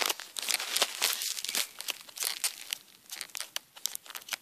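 Rustling, crackling handling noise right at a handheld camera's microphone: a quick run of scrapes and clicks, loudest in the first two seconds and thinning out after that.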